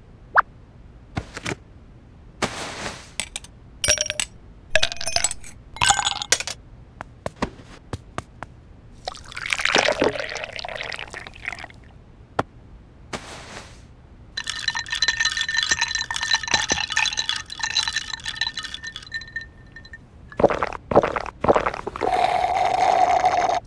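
Coffee ice cubes clinking one after another into a drinking glass, then milk pouring over them in a long steady stream, and a slurp through a straw near the end.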